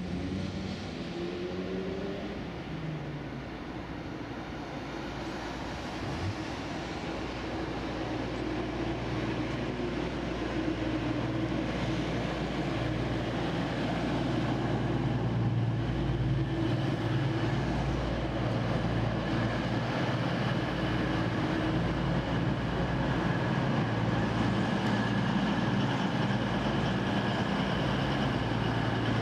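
Diesel passenger train pulling into the station, its engines running with a steady drone that grows louder from about ten seconds in and then holds as the train draws alongside.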